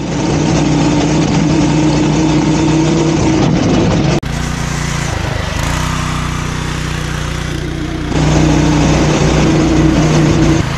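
Polaris Hammerhead Mudhead 208R go-kart's 208 cc single-cylinder four-stroke engine running at steady throttle, loud and close. About four seconds in it cuts to a quieter, more distant engine sound, and about eight seconds in the loud close sound returns.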